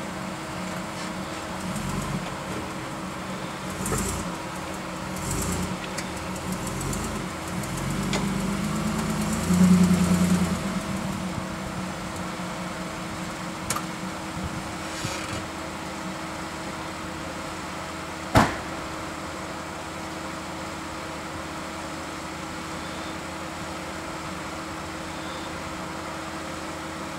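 Solid-axle-swapped Nissan Pathfinder's engine running at low revs while rock crawling, swelling briefly about ten seconds in as it is given throttle. A single sharp knock sounds a little past the middle.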